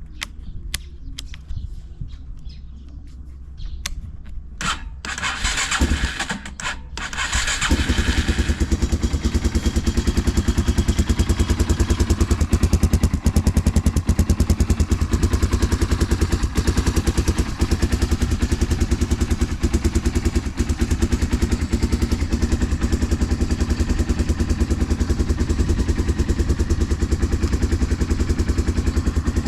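Yamaha Serow 225WE single-cylinder four-stroke engine with a Supertrap up-muffler being started: a few clicks, a short burst of cranking, then it catches about eight seconds in and settles into a steady, fast-pulsing idle. It runs evenly, with no abnormal noise according to the seller.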